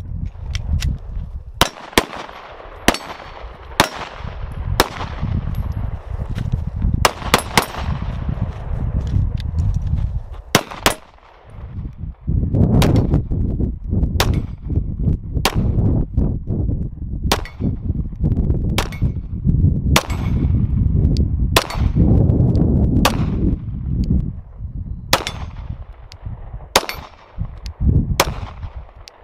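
A 9mm semi-automatic pistol firing single shots in a string, about twenty in all, at an uneven pace of roughly one a second with a few quick doubles.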